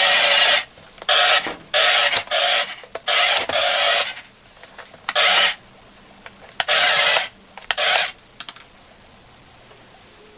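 Small electric gear motor of a remote-control transforming robot car toy whirring in a series of short bursts, stopping and starting about eight times, then falling quiet near the end.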